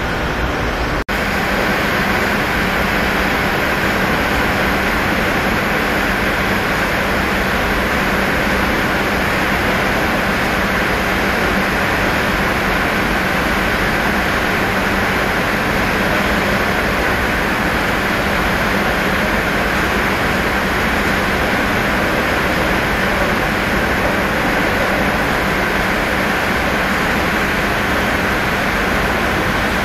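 Steady loud hum and hiss of running machinery, dipping briefly about a second in.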